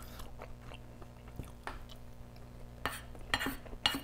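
Wooden spoon scraping and knocking against a plate while scooping up fried rice, with a few sharper clicks in the last second or so.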